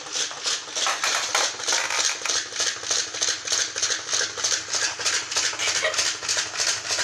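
Battery-powered waddling toy puppies running, their small motor and walking mechanism clicking steadily at about four clicks a second.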